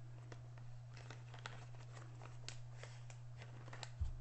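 Faint crinkling and light clicks of small plastic bags being handled, over a steady low hum. A soft thump on the table near the end.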